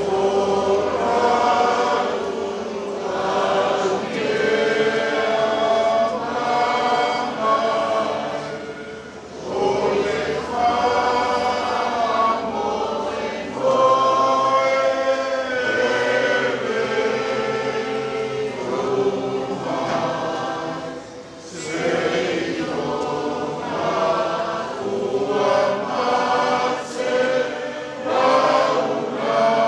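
A group of voices singing a hymn in Samoan, in long held notes with short breaks between phrases.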